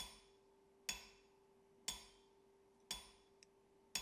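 Small steel piece dropped again and again onto the face of a Peter Wright anvil, each strike a bright ringing clink that dies away, about once a second.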